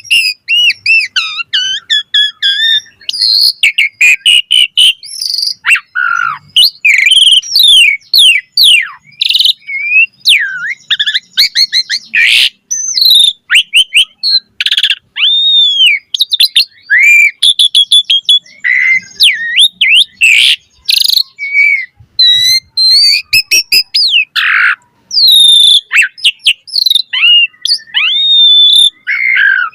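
Asian pied starling (jalak suren) singing without pause: a fast, varied run of whistles, chirps and rising and falling glides.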